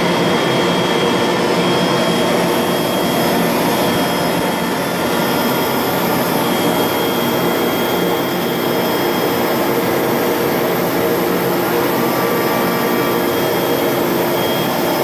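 ShopBot CNC router running: a steady, loud machining noise with a few thin high tones held throughout.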